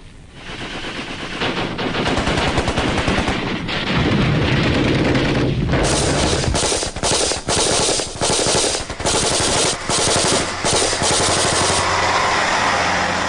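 Combat gunfire: automatic rifles and machine guns firing in rapid bursts, many shots a second with short breaks between bursts, building up over the first couple of seconds.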